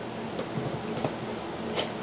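Small cardboard product boxes being handled and moved: a few soft taps and scrapes, with a sharper tap near the end, over a steady background hiss.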